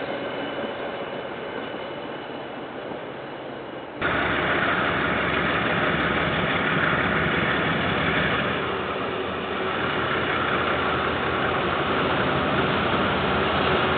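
Train noise from a passing KiwiRail train, fading over the first few seconds. It then cuts abruptly to a louder, steady engine and rail noise that runs on.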